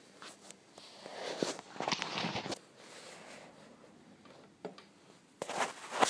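Handling noise: fingers turning a small diecast model airliner on a smooth tabletop, scraping and rubbing in two bursts, one about a second in and a shorter one near the end, with a few light clicks between.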